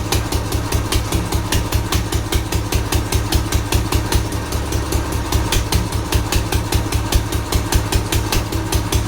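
Old diesel engine running steadily, each firing stroke a sharp knock at about five a second over a deep low rumble.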